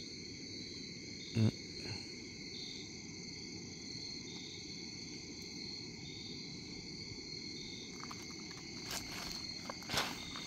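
Evening insect chorus: a steady high trilling with a slower chirp repeating regularly through it. A single thump comes about a second and a half in, and footsteps on gravel start near the end.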